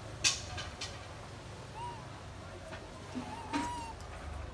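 Long-tailed macaques in a troop, with a few sharp clicks and knocks and two short, soft arched calls, one in the middle and one near the end.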